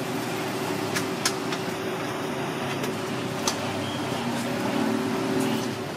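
Steady street background noise, an even hum and hiss, with a few sharp light clicks: two about a second in and one more past the middle.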